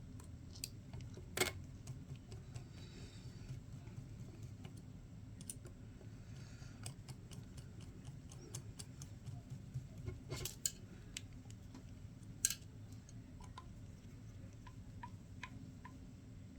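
Sparse small clicks and ticks of tools and small screws being handled while assembling an RC truck's axle housing, with a few sharper clicks, over a faint steady hum.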